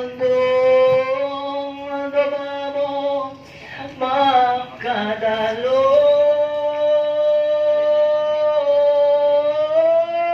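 A single voice singing a slow chant in long, held notes that step up and down in pitch, with a brief break about a third of the way in.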